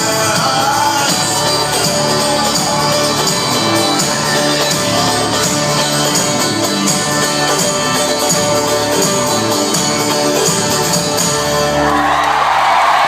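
Live folk-rock band playing with sung vocals at the close of a song; about twelve seconds in the music stops and the crowd cheers.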